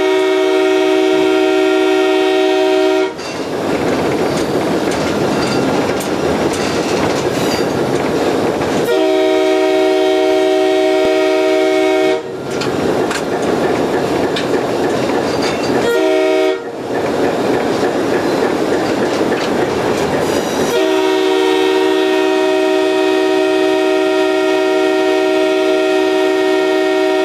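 Locomotive air horn on an MLW S-12 diesel switcher, heard from inside the cab, sounding a chord in two long blasts, one short and one long: the standard North American signal for a grade crossing. Between the blasts the train's running noise fills in.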